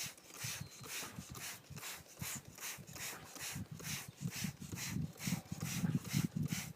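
Hand-trigger spray bottle squirting coil cleaner onto an air conditioner's coil, a short hiss with each pull of the trigger, about three or four squirts a second.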